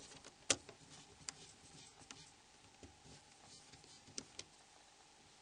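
Faint, scattered small clicks of a Torx driver working the screws out of a Nokia E70's plastic casing, with the sharpest click about half a second in.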